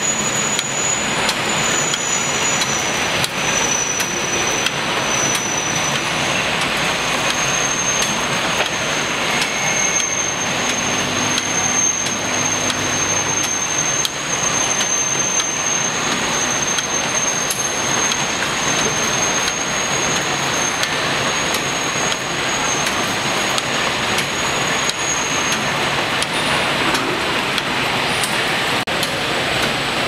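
Automatic rotary bottle washing machine running: a steady hiss and rattle with light clicks, and a thin high whine that stops near the end.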